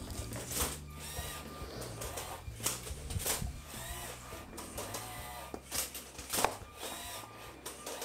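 LEGO robot motors whirring and starting and stopping, with rapid gear clicks and short rising and falling whines.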